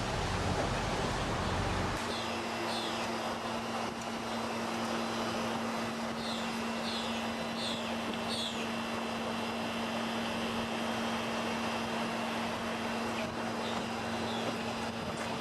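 Steady outdoor background noise with a constant hum that comes in about two seconds in, and small birds chirping in short runs of quick falling notes: a few near the start, a run from about six to nine seconds, and more near the end.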